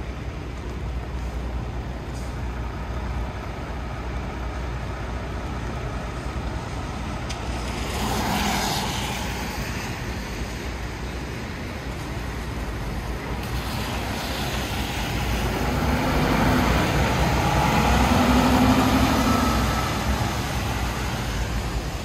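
City street traffic passing. One vehicle goes by about eight seconds in, then a heavier vehicle with a low engine hum builds up, is loudest a little before the end, and fades away.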